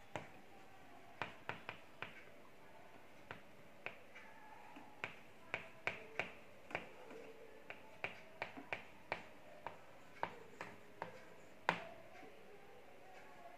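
Chalk clicking and tapping against a blackboard while a word is written: an irregular series of short, sharp ticks, some coming in quick clusters.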